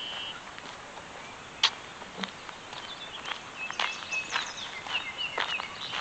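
Birds chirping and calling in short pitched notes, busier in the second half, with scattered sharp clicks and one louder click a little under two seconds in.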